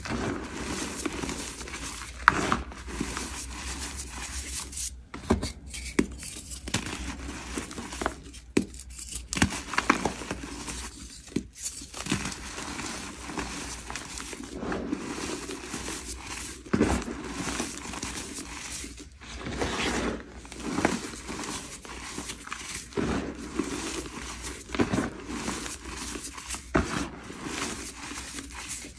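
Fresh gym chalk mixed with lots of glitter being crushed and rubbed between the hands, a continuous gritty crunching with frequent irregular sharp crackles as crumbs and powder fall through the fingers.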